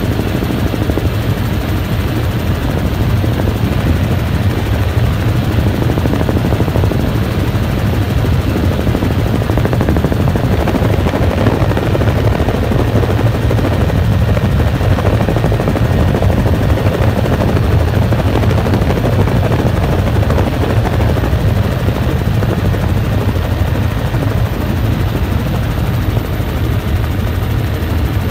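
Helicopter in flight: a loud, steady drone of rotor and engine with the fast beat of the rotor blades.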